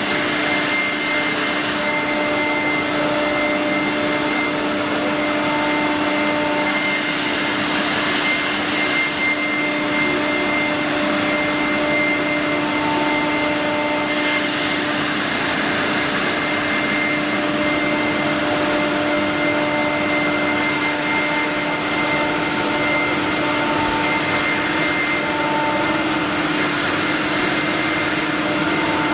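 Four-spindle CNC wood router running, its spindles giving a steady whine over a broad hiss, as when routing wood.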